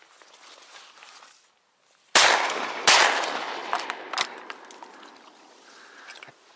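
Two shotgun shots about 0.7 s apart from an IZh-43 side-by-side double-barrel, one from each barrel, each followed by a long rolling echo that fades over a couple of seconds.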